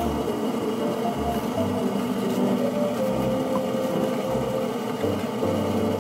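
Gentle background music with short held notes, over a steady rushing hum.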